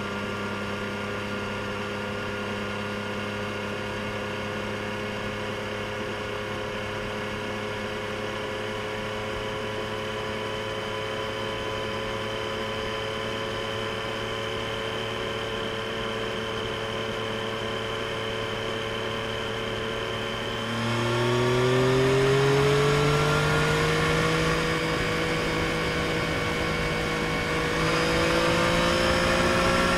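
Triumph Street Triple RS's 765 cc inline three-cylinder engine through its stock exhaust, heard onboard while riding: a steady cruise, then about two-thirds in the throttle opens and the engine gets louder with its pitch rising, levels off briefly, and climbs again near the end.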